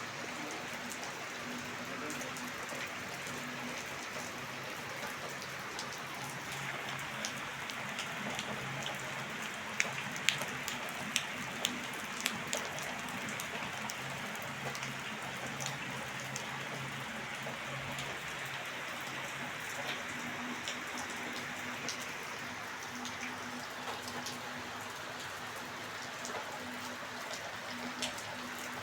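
Heavy rain falling steadily, with individual drops ticking sharply on a nearby surface; a few louder drop strikes stand out about ten to twelve seconds in.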